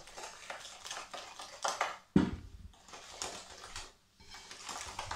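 A utensil stirring and scraping thick cookie dough of butter, sugar and egg around a glass mixing bowl, in irregular strokes, with one sharp knock about two seconds in.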